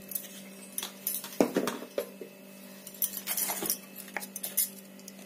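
Metal spoon clinking and tapping against steel bowls and spice containers in irregular short clusters, over a steady low hum.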